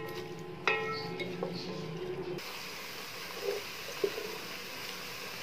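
Wooden spatula stirring sliced onions in oil in a pot, with a sharp knock on the pot that rings briefly under a second in and a few lighter taps after. From about two and a half seconds a steady sizzle of the onions frying in hot oil, with occasional soft spatula scrapes.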